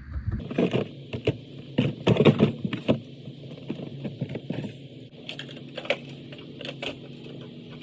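Rummaging through stored household items by hand: an irregular run of small clicks, knocks and rattles, busiest in the first few seconds and again near the end.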